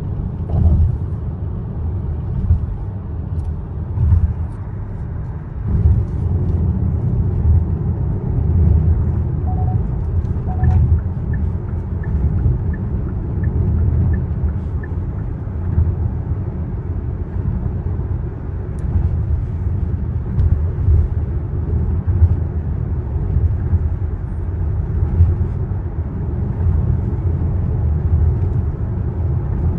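Low tyre and road rumble heard inside the cabin of a Hyundai Palisade cruising at speed, swelling now and then with the road surface. A faint, even ticking comes at about two a second for a few seconds midway.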